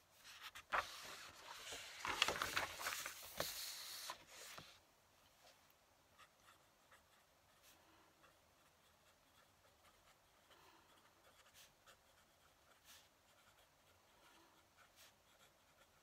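Paper rustling for about four seconds as a filled page of a writing pad is turned over, then the faint scratch and tick of a fountain pen nib writing on paper.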